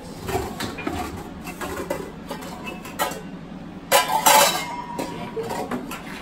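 Nested stainless steel mixing bowls clattering and clinking against each other as they are pulled out of a kitchen cabinet. The loudest clang comes about four seconds in, and the metal rings briefly after it.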